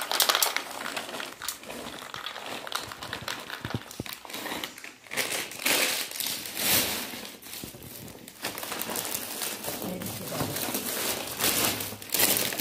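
Plastic bags crinkling and rustling as they are handled and opened, on and off throughout, loudest about six seconds in and again near the end.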